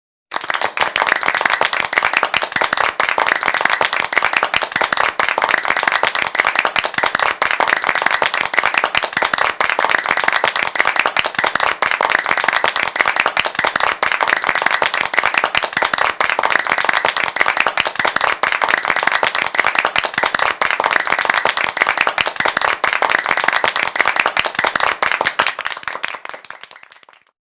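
Applause: many hands clapping steadily and densely, starting abruptly and fading out near the end.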